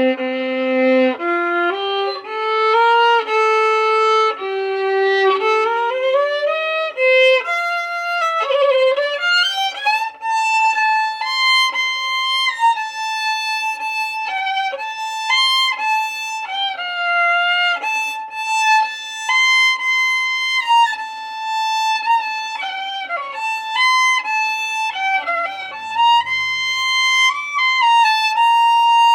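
Violin playing a melody, mostly one line at a time, with quicker moving notes in the first several seconds and longer held notes after.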